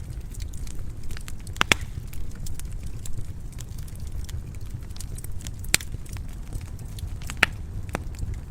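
Wood fire in a fireplace crackling, with a steady low rumble of flames under many small ticks and three louder sharp pops.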